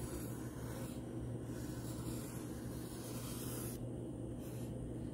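Black marker drawing on paper as a line is traced: a soft scratchy rubbing that comes and goes with the strokes, over a steady low hum.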